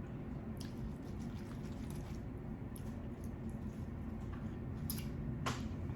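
Close-miked eating sounds from a seafood boil: wet chewing and mouth sounds with a few sharp smacks, the clearest near the end, over a steady low hum.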